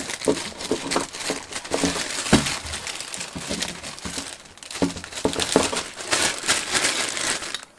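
Clear plastic zip bags crinkling and rustling as they are handled, with scattered sharp clicks.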